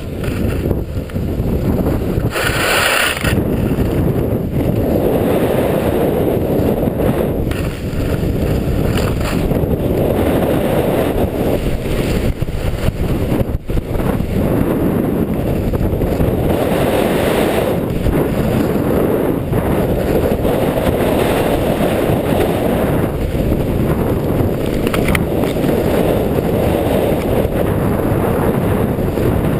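Wind rushing over a chest-mounted GoPro's microphone while skis run and scrape over packed snow. A brief harsh scrape comes about two to three seconds in.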